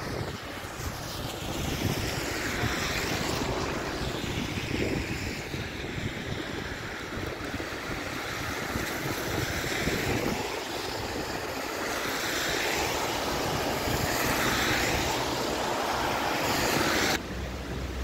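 Wind buffeting the microphone over a steady rushing hiss of wind and wet-road traffic. The hiss drops away abruptly about a second before the end.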